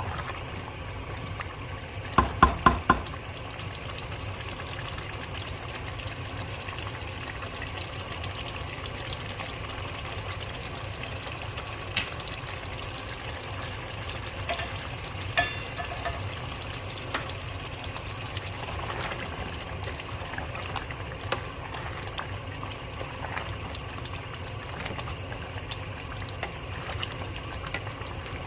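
A pot of curry cooking on the stove, giving a steady bubbling hiss. About two seconds in there is a quick run of four or five sharp clinks, with a few single clinks later.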